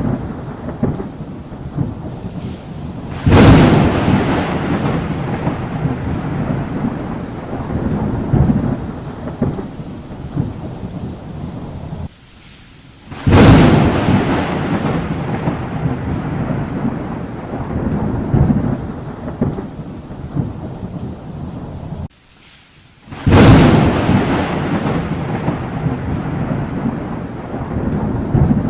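Thunderstorm: three sharp thunderclaps about ten seconds apart, each rolling away into a long low rumble, over steady rain. The sound drops out abruptly for about a second just before the second and third claps.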